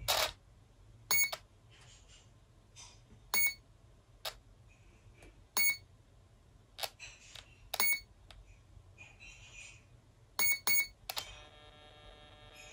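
Brushless motor of a ZOHD MK2 30A ESC setup emitting the ESC's status beeps: a sharp snap at the start, then short single beeps about every two seconds and a quick double beep. A steady chord-like tone starts about a second and a half before the end. These are the ESC's setup signals during throttle calibration and brake programming.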